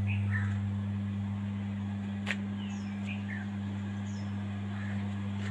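Steady low hum, with a few short falling bird chirps over it and a single sharp click about two seconds in.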